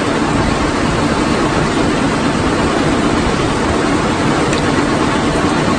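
Rock-crushing plant running: a Yongwon SP300 cone crusher (M type, 1050 rpm) and its belt conveyor carrying crushed stone, making a loud, steady mechanical din heaviest in the low rumble.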